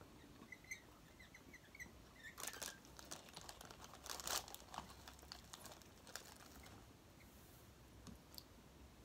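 Quiet scratching of pens writing on paper, with a paper food bag crinkling, loudest in two short rustles about two and a half and four seconds in, as food is bitten from it.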